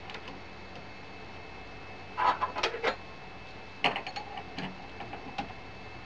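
Metal clicks and scraping from a spanner on the collet nut of a CNC router spindle as a cutting bit is fitted and tightened: a cluster of scrapes and clicks about two seconds in, then a sharp click and a few lighter ticks.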